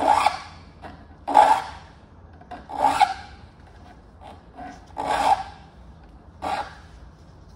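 A file being pushed across the teeth of a handsaw clamped in a saw vise, sharpening the teeth: five short strokes, each about half a second long, spaced one to two seconds apart.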